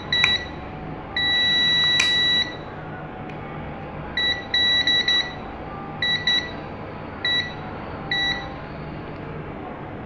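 Digital multimeter continuity beeper sounding a steady high beep as the probe touches a phone circuit-board line, showing that the line is still shorted to ground. One long beep early on, then short broken beeps as the probe contact makes and breaks, with a click near the start.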